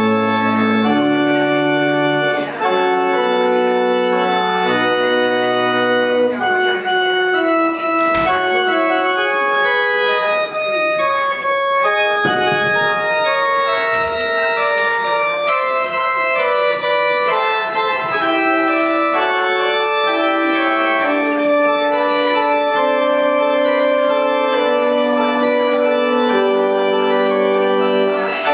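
Church organ playing slow, sustained chords, with bass notes under the opening chords.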